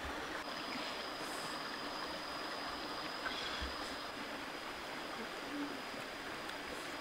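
Stream water flowing steadily over rocks, with a thin, high, steady whine joining about half a second in.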